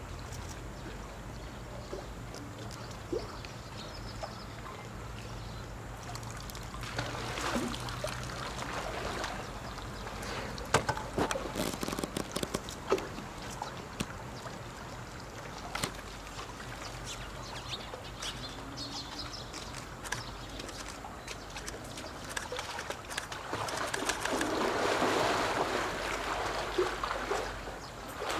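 Pool water sloshing and splashing as polar bears swim, with a few sharp knocks about halfway through and a louder stretch of splashing near the end.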